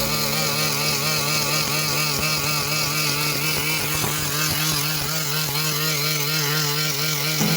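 Engine running at a steady speed, its pitch wavering evenly about three times a second.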